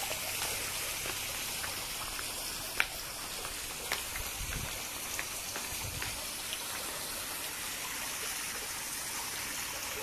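Steady hiss of running water, with a few short sharp ticks, the loudest about three seconds in.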